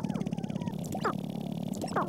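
Sharp-tailed grouse displaying on a lek: a fast, even rattling patter from the males' stamping feet and rattling tail feathers, with three short sharp calls, one near the start, one about a second in and one near the end.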